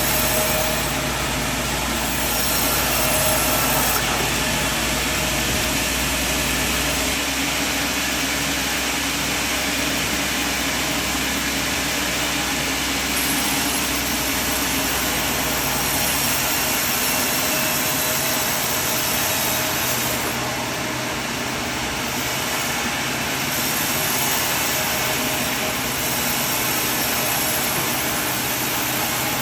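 Sawmill running, a steady loud mechanical drone of the saw and its motor, with small shifts in pitch and level as the cut goes on.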